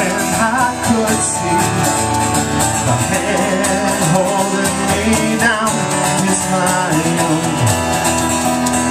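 Live band playing a song, with the drum kit and cymbals keeping a steady beat under the other instruments.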